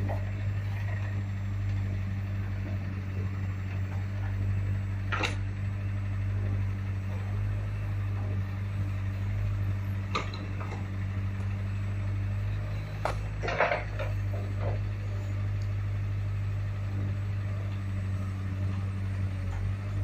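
An engine running steadily with a constant low hum, with a few short knocks about five, ten and thirteen seconds in.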